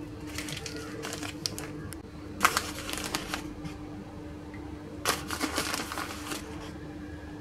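Crinkling and rustling of a paper packet of pastry-cream powder as it is handled and tipped over a saucepan of milk, in several short bursts. A steady low hum runs underneath.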